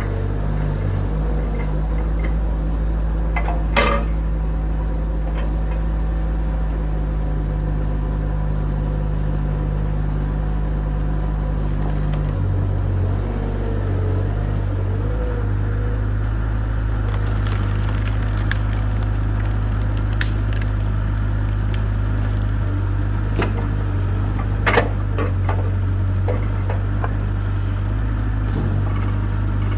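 Bobcat 753 skid steer's diesel engine running steadily while powering a hydraulic log splitter; its note shifts about a second in and again around the middle as the hydraulics take load. Two sharp cracks, about four seconds in and near the end, with smaller clicks, from timber splitting.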